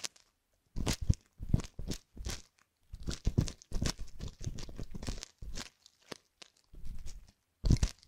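Metal ear hook and tweezers scraping and picking hardened fake gunk out of the canal of a silicone ear model: irregular crackly scratches and crunches, several a second, with short pauses between them.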